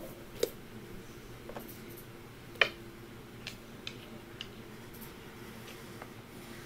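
Scattered light clicks and taps from hands handling small objects, the loudest about two and a half seconds in, over a faint steady hum.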